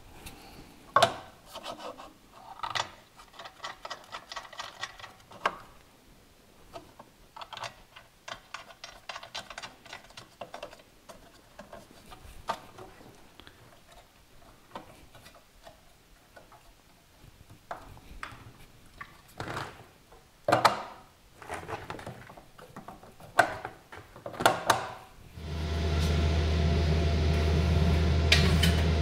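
Handling of a 3D-printed plastic duct and its metal thumbscrews on an aluminium laser bed: scattered clicks and knocks, with two stretches of light rattling as the thumbscrews are turned. About 25 seconds in, a fan starts and runs with a steady low hum, louder than the handling.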